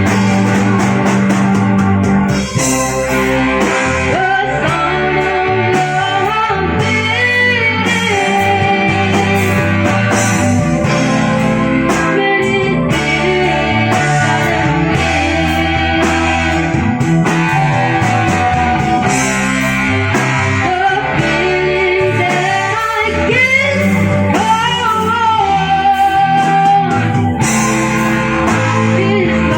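Live band playing, electric guitar to the fore, with a sung or bent-guitar melody over bass and drums.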